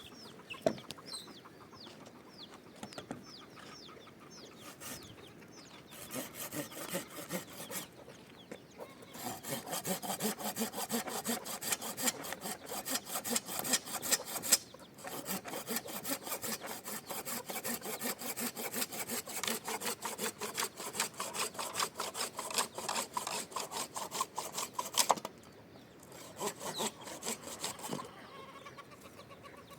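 Chickens calling with short falling chirps, then a long run of fast, rhythmic rasping strokes like a hand saw or rough scraping, breaking off briefly twice, before the chickens are heard again near the end.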